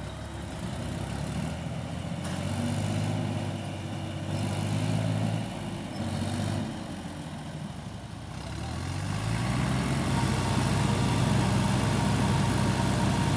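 Tractor diesel engine running; about nine seconds in its revs and loudness climb and stay up.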